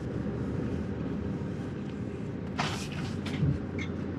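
Hyundai Solati campervan's diesel engine running steadily at low revs, with a brief rushing noise about two and a half seconds in.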